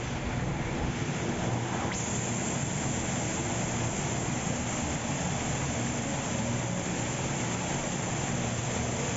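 Steady rush of a curtain of water pouring down just in front of the phone's microphone, heard from behind the falling water.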